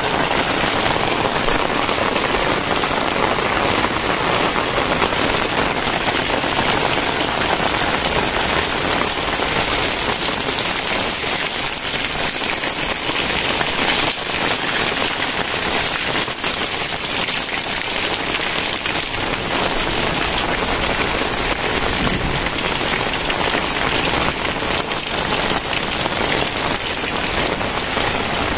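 Very heavy rain falling steadily, a dense, unbroken patter of countless drops.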